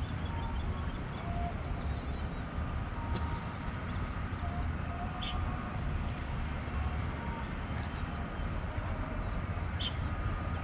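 Steady low rumble of wind on the microphone, with a few short, faint bird chirps.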